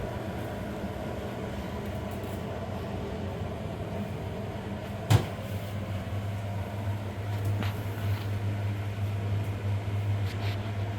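A trash can lid clacks shut once, sharply, about five seconds in, with a few faint knocks later, over a steady low hum.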